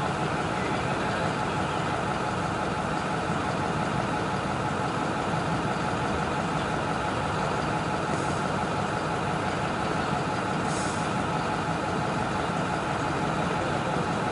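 Heavy vehicle engine idling steadily, with two brief hisses about eight and eleven seconds in.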